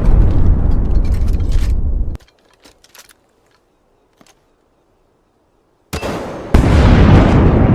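A loud, rumbling, rushing noise that cuts off suddenly about two seconds in. After a near-silent stretch with a few faint clicks, the same kind of noise starts again about six seconds in and gets louder half a second later.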